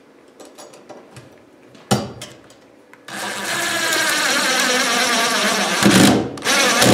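Cordless drill driving a screw into a wooden joist to fasten a metal electrical box. After a few light handling clicks and a knock, the motor whines steadily for about three seconds, then gives two short, louder bursts near the end.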